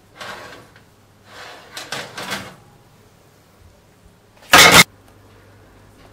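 Metal baking tray being slid out of an oven, scraping over the rack in several short strokes. About four and a half seconds in comes a short, much louder clunk.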